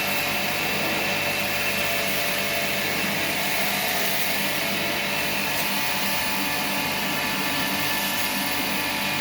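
Electric pressure washer running steadily, its motor and spray making a loud, even noise.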